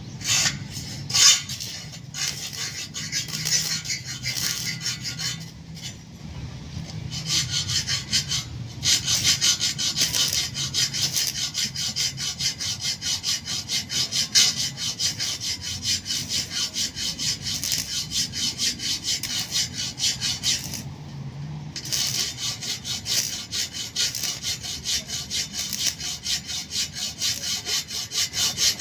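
Rhythmic back-and-forth scraping strokes of a hand tool working a hard surface, about three strokes a second, with a short pause about 21 seconds in.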